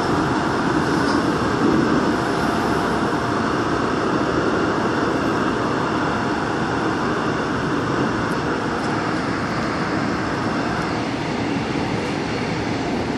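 Daegu Metro Line 2 subway train running through a tunnel: a steady rumble and hiss of wheels on rail. The higher part of the hiss fades a little about eleven seconds in.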